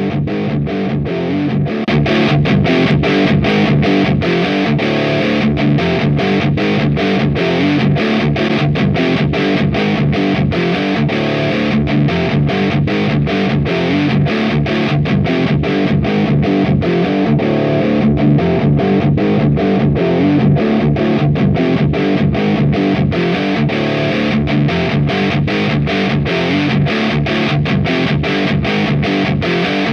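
Heavily distorted electric guitar through an AMT Bricks R/S Lead 12AX7 tube preamp, playing metal riffs with fast, closely spaced picked notes. It runs steadily over looped guitar layers.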